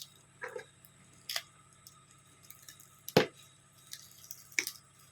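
Several separate sharp clicks and knocks of metal parts and tools being handled during work on a microwave oven transformer, the loudest about three seconds in.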